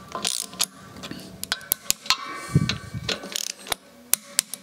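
Ratchet wrench clicking in short, irregular runs as the clutch pressure plate bolts are tightened down onto the flywheel, with a dull knock just past halfway.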